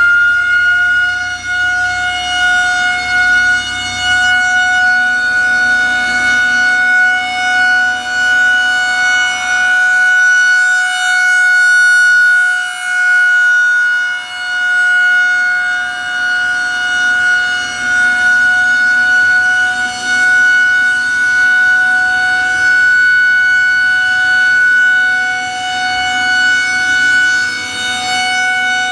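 Federal Signal 2001-130 electromechanical outdoor warning siren during its weekly test: its tone climbs to full pitch in the first second, then holds one steady wail, the loudness swelling and fading as the rotating horn sweeps past.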